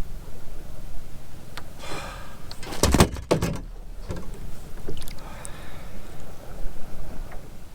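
Knocks and thumps on a fishing boat over a steady low rumble. The loudest knocks come about three seconds in, with a few more later.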